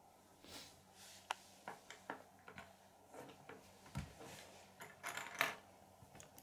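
Small plastic K'nex pieces handled on a wooden table: scattered light clicks and rustles, with a dull bump about four seconds in and louder rustling just after five seconds.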